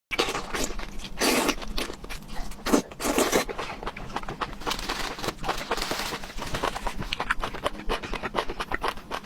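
Close-up eating sounds: a person chewing and working food in the mouth, with many quick crunches, clicks and smacks and some heavy breaths.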